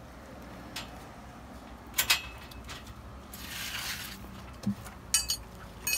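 Steel spanners clinking and ringing against the bolts and steel manway lid of a buried fuel tank as the bolts are tightened. There are a few sharp metal clinks: two about two seconds in and a quick cluster near the end. A short scraping hiss and a dull thud come in between.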